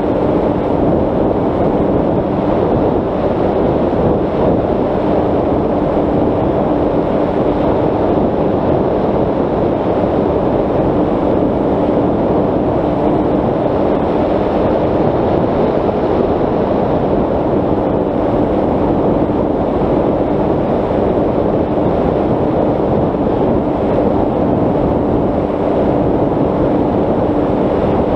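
Airflow rushing over the onboard camera's microphone as the Bixler 3 RC plane cruises, with the steady hum of its electric motor and propeller (a Turnigy 3542 brushless motor on a 10x7 prop) under the noise.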